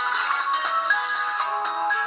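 Samsung Galaxy S3 ringtone playing: a bright electronic melody of short notes in quick succession, high-pitched with no bass.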